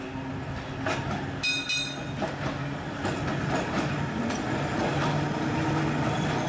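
Vintage electric tram, Bendigo No. 25, running along street track toward the listener: a steady low hum with clicks and rattles from the wheels on the rails, growing louder as it approaches. A brief high ringing tone sounds about one and a half seconds in.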